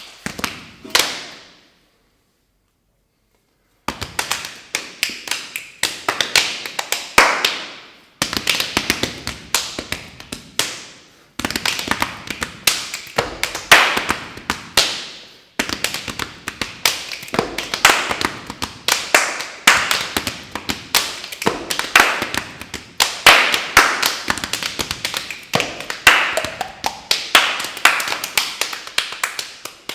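Dancers' body percussion: rapid, dense tapping and knocking in quick rhythmic runs. The sound drops out for about two seconds near the start and breaks off briefly a few more times.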